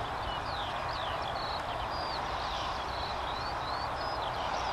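Birds singing: a quick run of short, high whistled notes, each sliding up or down, over a steady rushing background noise with a low rumble.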